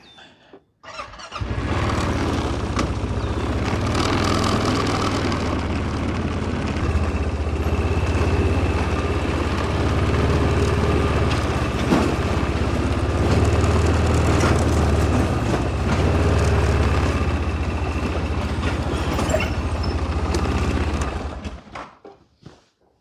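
A vehicle engine running steadily for about twenty seconds. It comes in abruptly just after a second in and dies away near the end.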